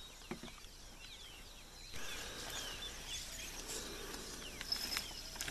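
Many birds calling in short, falling chirps, the calling getting louder and busier about two seconds in, with a few faint knocks.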